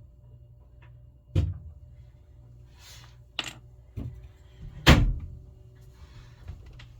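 Four sharp knocks and thunks of things being handled, the loudest about five seconds in, over a low steady hum.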